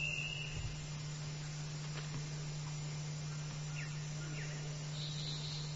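Faint Amazon rainforest ambience: an even background hiss with a steady low hum, and a few faint short chirps about four seconds in.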